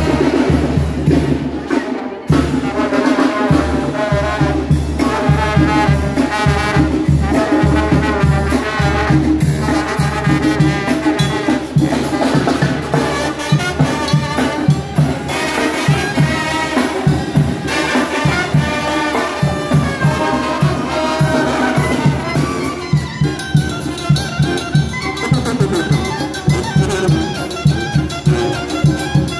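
Live brass band playing a lively dance tune: trumpet, saxophone, clarinet and trombones carry the melody over a steady, fast beat from bass drum, snare and cymbal.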